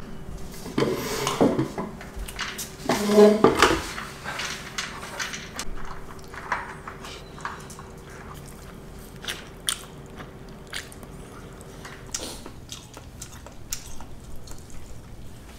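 Sounds of a meal at a table: light clicks and clinks of chopsticks, spoons and dishes, with chewing. Two louder clattering bursts come about one and three seconds in. A faint steady hum stops about twelve seconds in.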